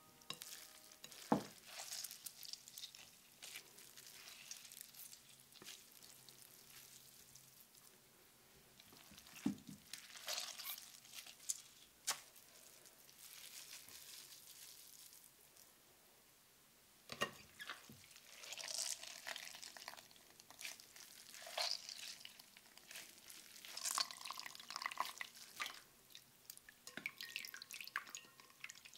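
Wet grated zucchini being stirred in a glass bowl and then mixed and squeezed by hand: faint squelching of the watery shreds with dripping juice, and a few sharp knocks.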